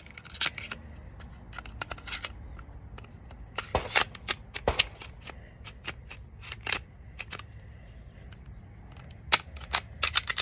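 Sharp metal clicks and clacks of a Glock Gen 5 pistol's slide being handled and fitted onto another Glock frame: a few single clicks, then a quick run of them near the end.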